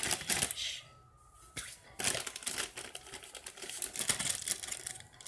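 Plastic packaging crinkling and crackling as it is handled, in uneven spurts with a short pause about a second in.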